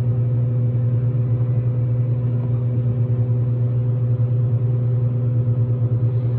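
Steady low mechanical hum, one droning pitch with a few overtones above it, holding even throughout.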